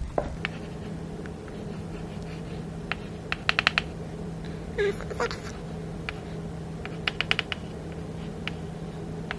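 Chalk writing on a blackboard: two quick runs of sharp taps and strokes as a structure is drawn, with a brief chalk squeak between them, over a steady low hum.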